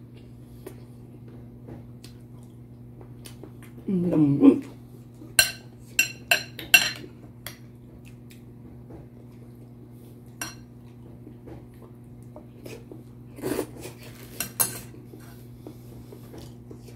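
A metal spoon clinking against a glass serving bowl: a quick run of ringing clinks about five to seven seconds in and two more near fourteen seconds, over a steady low hum.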